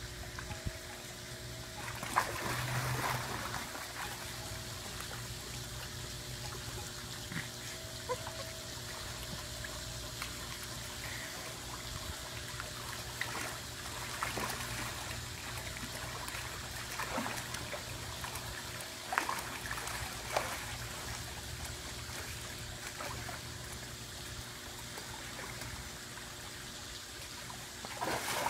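Pool water trickling and lapping under a steady low hum, broken by a few splashes as a dog steps onto a floating bodyboard, shifts about on it, and jumps off into the pool near the end.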